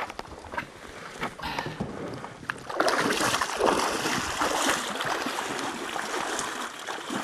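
Water rushing and splashing, growing louder about three seconds in, after a few sharp knocks.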